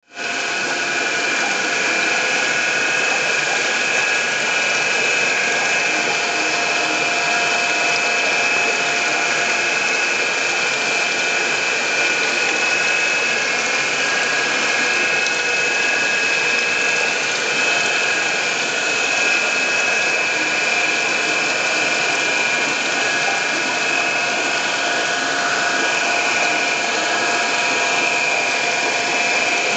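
Steady mechanical whirring: a constant high whine over a hiss, unchanging throughout, typical of a small motor running.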